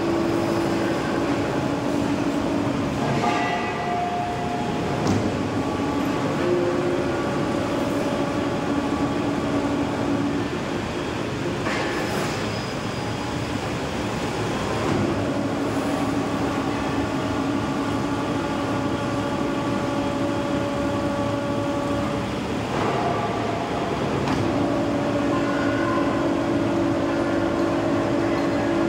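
Workshop machinery noise from large roll-turning lathes and other machines running: a steady mechanical din with hum tones that shift every few seconds, and a few sharp knocks.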